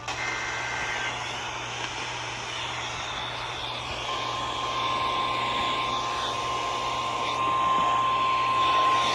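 Steady rushing hiss with a low hum under it; a single steady high tone comes in about four seconds in and holds.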